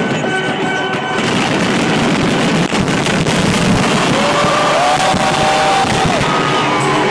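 Fireworks bursting and crackling in a dense, continuous salvo, with loud music playing through it.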